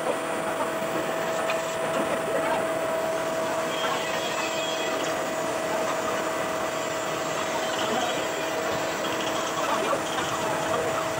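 Steady machine hum with a constant whine, like shop machinery or a motor running, over a background of workshop noise.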